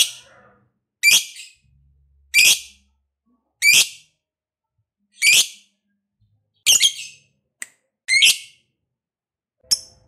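A lovebird giving a series of loud, shrill calls one at a time, about eight in all, roughly one every second and a half.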